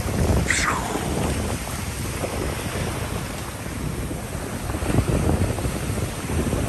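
Ocean surf washing up the beach with wind buffeting the microphone. A short high sound falls in pitch about half a second in.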